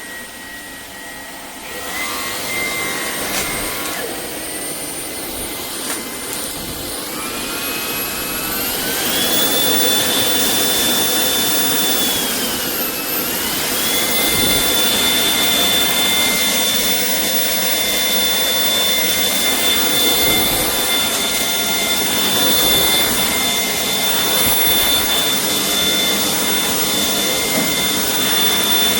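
Shark PowerDetect cordless stick vacuum's motor running with a high whine. It rises in pitch and gets louder several seconds in, dips briefly near the middle, then holds steady.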